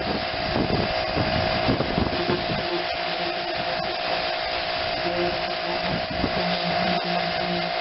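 Small pressure washer running, its spray hissing steadily against a lawn tractor and mowing deck, over a constant whine from the machine. A lower hum comes and goes in the second half.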